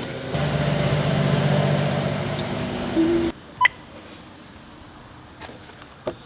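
A motor runs steadily with a low hum, stops abruptly about three seconds in, and a short electronic beep follows.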